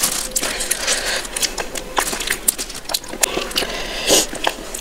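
Close-miked crackling and scraping of a paper ice cream tray handled by fingers, then a wooden spoon scraping ice cream from a plastic cup, with many small clicks and eating mouth sounds. The loudest scrape comes about four seconds in.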